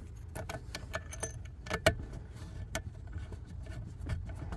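Light irregular clicks and rattles of a CB radio's power lead and wiring being handled and fitted by hand at the radio, over a steady low hum.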